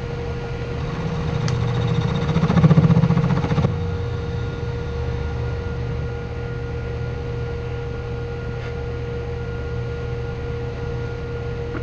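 Steady hum of a small bench lathe's electric motor and the fan cooling it. A louder, rougher noise runs over it from about one second in to nearly four seconds in, then the steady hum goes on alone.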